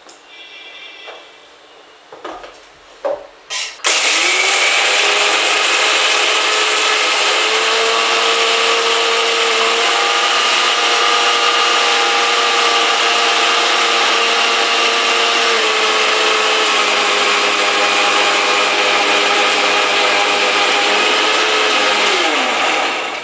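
Electric mixer grinder with a steel jar grinding soaked safflower seeds with water into safflower milk: a few knocks as the jar is set and closed, then the motor comes up to speed about 4 s in and runs with a loud, steady whine, winding down with a falling pitch near the end.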